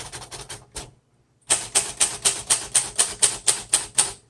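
Keys of a 1938 Royal Model O portable manual typewriter striking in a fast, even run of about five or six strokes a second, after a short pause about a second in. The typebars hit crisply with a light touch.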